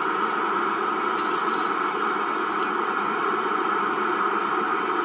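Steady static hiss from a CB radio's speaker between transmissions, with no voice on the channel.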